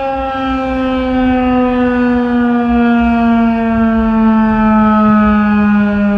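Federal Signal 2001-130 outdoor warning siren sounding a single long tone on its Alert test, the pitch sliding slowly and smoothly downward while the level creeps up a little.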